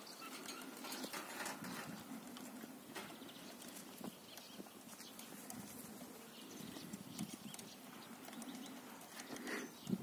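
Faint outdoor background with bird calls and scattered small knocks and rustles.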